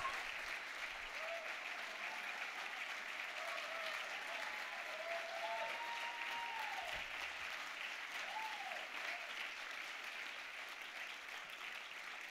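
Audience applauding, with a few voices calling out over the clapping; the applause slowly dies down towards the end.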